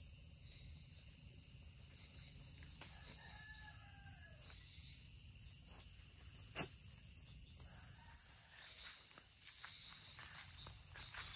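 Crickets chirring steadily, with a rooster crowing once in the distance about three seconds in. A single sharp click sounds past the middle, and rustling footsteps in the grass come in toward the end.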